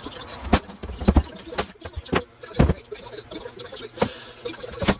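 Irregular sharp knocks and cracks, about eight in five seconds, from backdrop panels of hot-glued backer board being pulled and knocked loose from their wooden strips.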